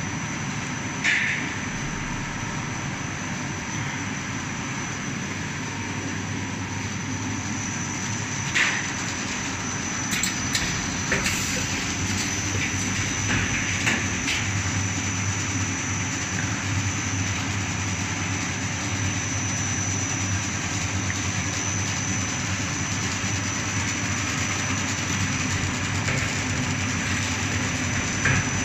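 Steamed-bun production line machinery running steadily: a continuous mechanical hum with a steady high whine. Short knocks and clicks come about a second in, again near the middle, and in a brief cluster just after.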